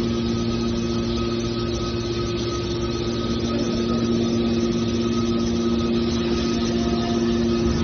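Hydraulic scrap metal baler's electric motor and pump running with a steady hum.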